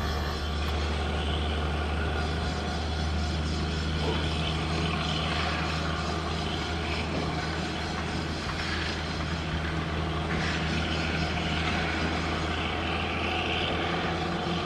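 Diesel engine of a Plasser & Theurer Duomatic track tamping machine running steadily as the machine travels along the track: a constant low drone, with a second, higher hum coming in about four seconds in.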